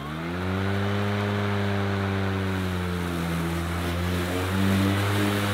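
EGO 56V Select Cut battery lawn mower's electric motor and multi-blade cutter finish spinning up, then run steadily, set to cutting height level 3 on thick grass. The pitch sags a little as the mower is pushed into the grass, then picks back up about four and a half seconds in.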